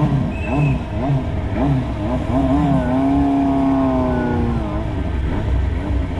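Motorcycle engine being revved in quick repeated blips, each a short rise and fall in pitch. About three seconds in, it is held at a steady high rev for roughly two seconds and then drops, and the quick blips start again.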